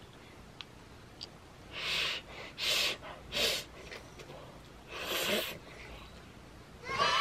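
Slurping jjapaghetti noodles: four short, hissy slurps, the middle two the sharpest and loudest. Music starts near the end.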